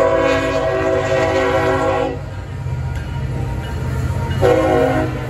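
CSX diesel freight locomotive sounding its horn: a long blast that ends about two seconds in, then a short blast near the end. Under it runs the steady low rumble of the passing train.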